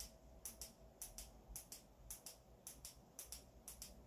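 Small plastic buttons on a ring light's inline controller clicking, about twice a second, each press a quick double click, as the brightness is stepped down one level at a time.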